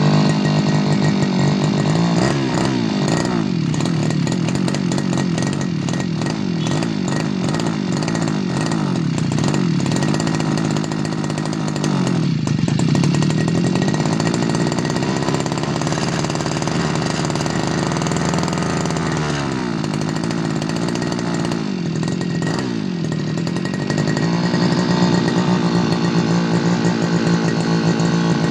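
Tanika 328 Turbo brush cutter engine running steadily at high speed, its pitch dipping and climbing back several times as the throttle is eased and opened again.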